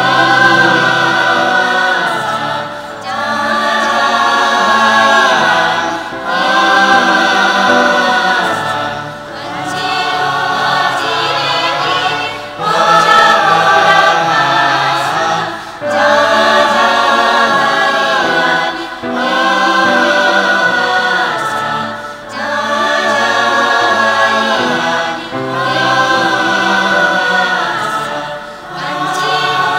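Choir singing a Nepali choral song in phrases of about three seconds each, with short breaths between them.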